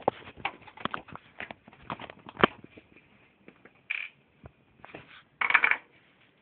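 Hands working on a desktop computer's case and parts: a run of small clicks and taps, a sharper knock about two and a half seconds in, and two short scraping rustles, one near the middle and a louder one near the end.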